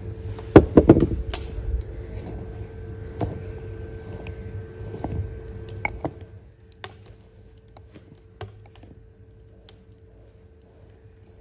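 Clicks and knocks of kitchen utensils and dishes during food preparation. There is a quick cluster of sharp knocks about a second in, then scattered lighter clicks that thin out after the first half.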